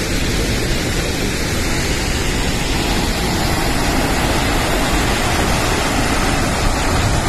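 Large waterfall's falling water heard close up, a loud, steady rushing noise that does not change.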